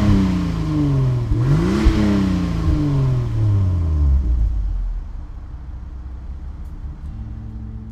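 1998 Toyota Supra Twin Turbo's 2JZ-GTE twin-turbo inline-six being revved: the revs fall from a blip, rise in a second quick blip about two seconds in, then drop back to idle. The engine sound fades out over the last few seconds.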